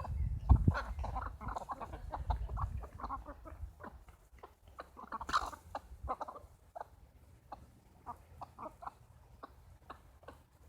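Chickens clucking in a quick run of short calls, busiest in the first few seconds, with a louder call about five seconds in, then thinning to scattered clucks. A low rumble sits under the first three seconds.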